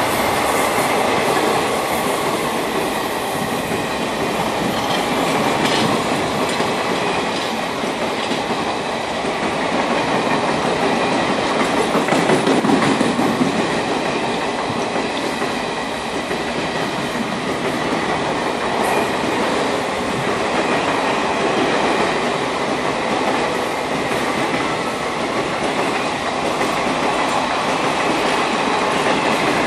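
Indian Railways express passenger coaches rolling past at close range: a loud, steady rumble and rattle of wheels and bogies on the rails.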